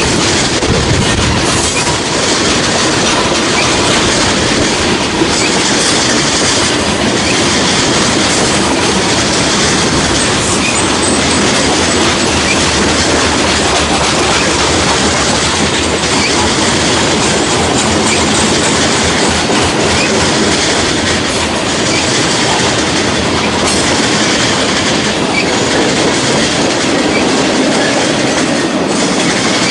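Freight cars of a mixed freight train rolling past close by, the steel wheels clattering steadily over the rails.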